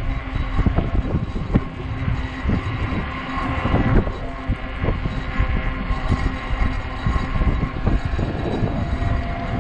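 Strong gusty wind buffeting the microphone of a rider on a moving e-bike: a loud, uneven rumble that swells and drops with the gusts.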